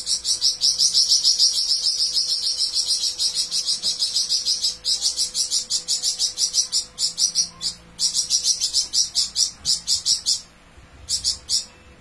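Caged flamboyan songbird singing a long, fast, high-pitched pulsed trill, broken briefly twice, then one short final burst near the end.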